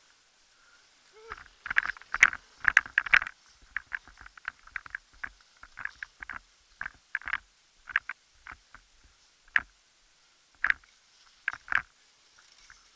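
Mountain bike rattling and clattering over a bumpy dirt trail: irregular sharp clicks and knocks from the chain and frame jolting on the bumps. They come thick and fast in the first few seconds, then more spaced out, with a few hard knocks near the end.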